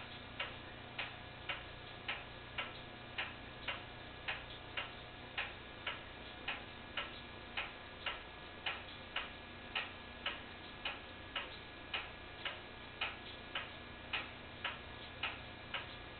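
Steady, even ticking, a little under two ticks a second, over a faint steady hum.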